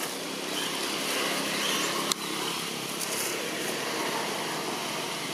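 Steady rushing background noise with a faint low hum, broken by a single sharp click about two seconds in.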